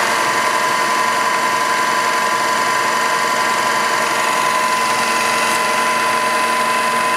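2002 Southwestern Industries K3 knee mill under power, its end mill cutting a metal part: a steady cutting whine over the constant run of the spindle and head.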